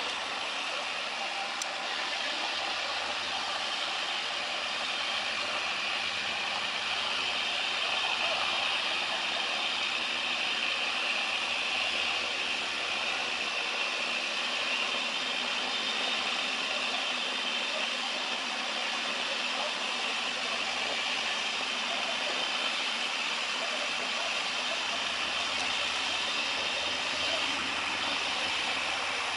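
Steady machinery noise, an even din with no distinct engine note or rhythm, holding level throughout.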